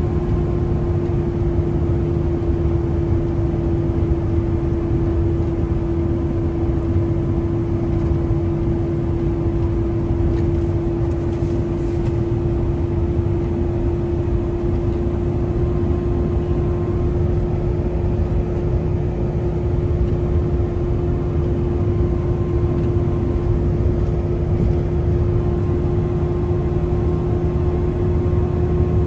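Hotshot pickup truck driving at steady speed: a constant road and engine drone with a steady hum running through it.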